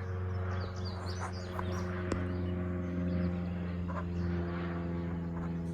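Small propeller airplane flying overhead, its piston engine droning steadily, with birds chirping.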